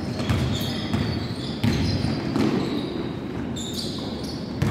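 Basketball dribbled on a gym floor, irregular echoing bounces, with short high sneaker squeaks from players running.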